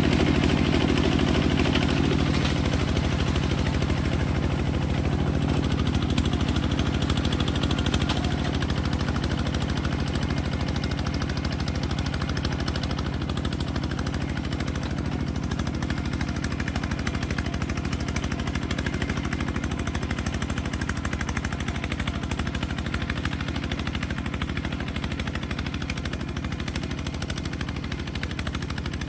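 Kubota bulldozer's engine running steadily with a rapid, rough firing beat, slowly getting quieter over the stretch.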